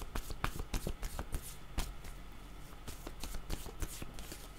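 A deck of oracle cards being shuffled by hand: quick crisp clicks of card on card, thick in the first couple of seconds and thinning out after.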